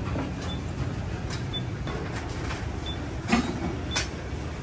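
Steady low rumble of traffic and street noise, with two sharp knocks about three and four seconds in from utensils at a chopping board where roast chicken is being chopped and bagged. A faint short beep repeats about once a second.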